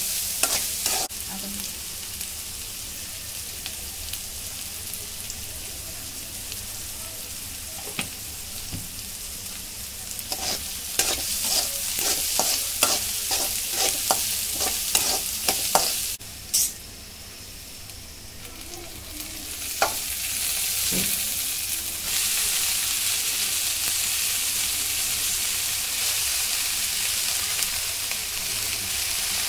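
Sliced small onions, garlic and dried red chillies sizzling in oil in a kadai, with the spatula clicking and scraping against the pan while stirring, most busily in the middle. After a brief quieter stretch, the sizzle comes back louder and steady about two-thirds through, with chopped siru keerai greens in the pan.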